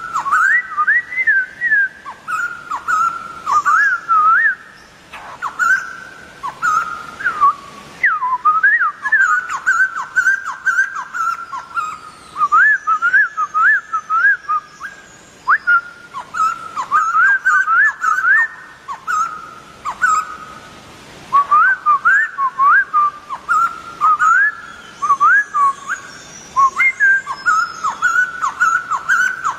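White-crested laughingthrush singing: loud, clear whistled notes with quick rising and falling sweeps, strung into phrases with short pauses between them.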